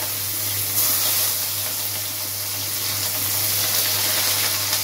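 Pieces of food frying in hot oil in an aluminium wok: a steady sizzle that swells about a second in, over a low steady hum.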